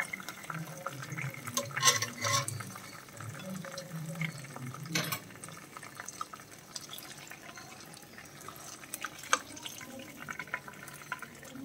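Oil sizzling and crackling around fish shallow-frying in a nonstick pan, with a few sharp clicks and scrapes from a steel spatula and a wooden spatula against the pan as the fried fish is lifted.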